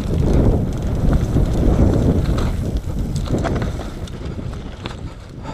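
Nukeproof Mega 275 enduro mountain bike descending a dirt trail at speed: wind buffeting the microphone over tyre noise on dirt and dry leaves, with frequent rattles and knocks from the bike over the bumps. It eases off a little near the end.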